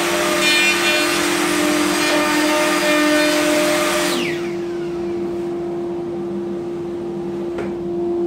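Handheld plunge router running and cutting a groove in wood, with a dust-extraction vacuum running alongside. A little over four seconds in the router is switched off and spins down, leaving the vacuum running steadily.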